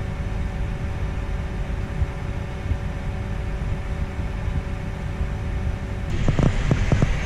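Pickup truck driving, its engine and road noise a steady low rumble. About six seconds in, a brighter hiss starts, along with a quick series of short knocks.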